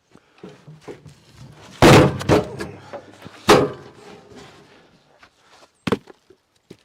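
A series of heavy thuds and knocks: the loudest pair about two seconds in, another about a second and a half later, and a lighter double knock near the end, with softer clatter between.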